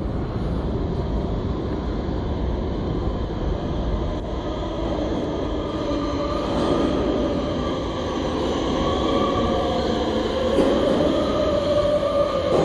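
R160B Siemens subway train pulling into an underground station: a continuous rumble builds as it nears, with a steady whining tone growing over the second half as the cars come alongside the platform.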